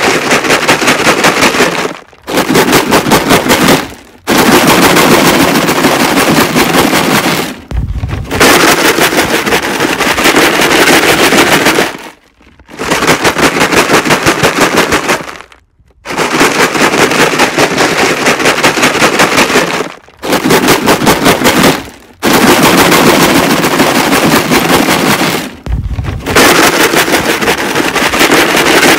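Rocks rattling inside a plastic jug, shaken hard in bouts of a few seconds with short breaks between them, about nine bouts in all. A dull low thud falls in two of the breaks.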